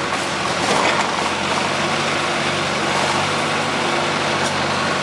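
Diesel engine of a hydraulic mobile crane running steadily under load while hoisting a truck, its note changing a little about two seconds in.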